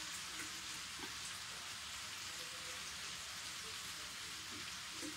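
Pan of chicken and vegetables sizzling softly on a hot stovetop: a steady, even hiss.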